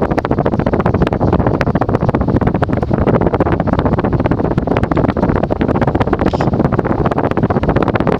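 Antique Diehl 52-inch ceiling fan with basswood blades running on high speed: its air stream buffets the microphone as a loud, steady rushing wind noise with a rapid flutter.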